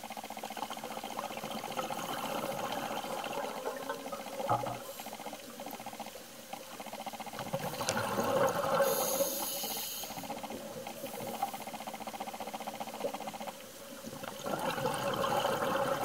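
Underwater recording of scuba breathing: a regulator hiss and rushes of exhaled bubbles that swell and fade every few seconds.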